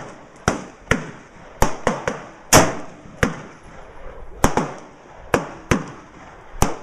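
Gunfire from other shooters on the range: over a dozen sharp cracks at irregular intervals, some louder than others, each with a short echo.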